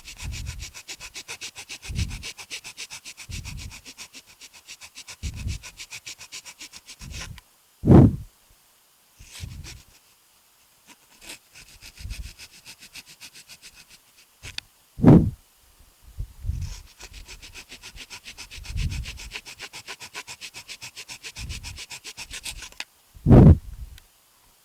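Plastic control housing being shaved down by hand: a fast, even rasping scrape in long spells. Three loud puffs of breath on the microphone break it, at about 8, 15 and 23 seconds in.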